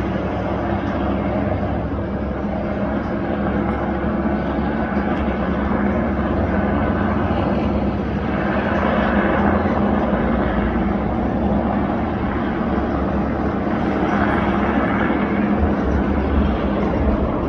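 Police helicopter's engine and rotor running steadily: a continuous dense drone with a held hum and no breaks.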